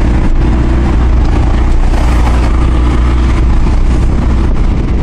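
1998 Hyundai Porter's diesel engine running steadily while the truck drives along, heard inside the cab with road and tyre noise.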